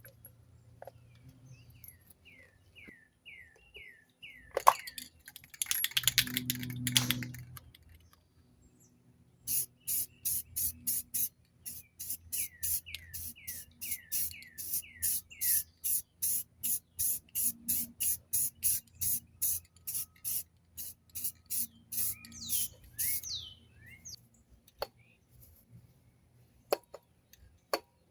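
A rattle can of spray paint in use: one longer burst about six seconds in, then a fast run of short sharp bursts, about two a second, for most of the rest. A bird chirps in series of short falling notes.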